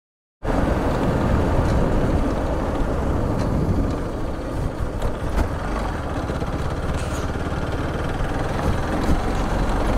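Motor vehicle running on the move, most likely the vlogger's motorcycle, with heavy wind rumble on the microphone. It starts abruptly about half a second in and then stays steady.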